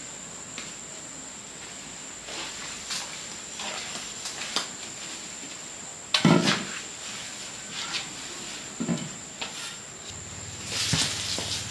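Footsteps and small knocks of someone moving about on a concrete floor, with a wooden pole knocking against the floor about six seconds in, then a straw broom starting to sweep the concrete near the end. A faint steady high whine sits under it all.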